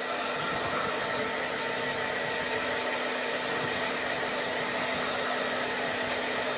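A small electric blower motor running steadily: a constant rush of air over an even hum.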